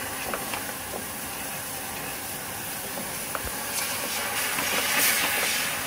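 HARSLE 700 W fiber laser cutting head cutting stainless steel sheet: a steady hiss of assist gas jetting from the nozzle through the cut, with a few faint ticks. The hiss grows louder about four seconds in.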